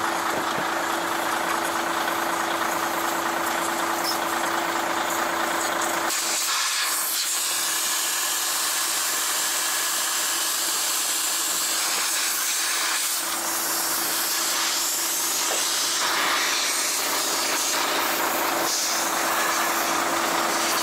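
Compressed air hissing steadily from a truck tyre's open valve stem while the valve core is being changed, with a steady low hum under it. The bass drops away about six seconds in while the hiss goes on.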